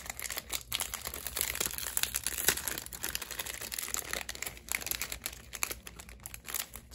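Crinkly wrapper of a small stationery kit being handled and worked open by hand: an uneven run of crackles and small clicks.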